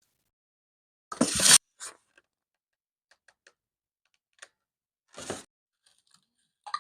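Close-miked sushi-roll eating sounds: a loud crunching bite about a second in, a few faint clicks, and a second crunch a little past five seconds in.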